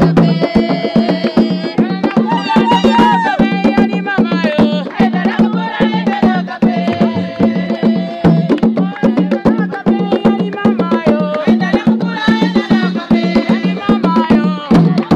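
Traditional drumming on tall wooden hand drums, with quick, dense strokes, and women singing over it.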